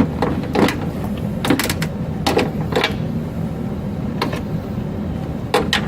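Scattered sharp metallic clicks and taps of a hand tool working on a 10 mm bolt inside a car door, about seven separate clicks, over a steady low background hum.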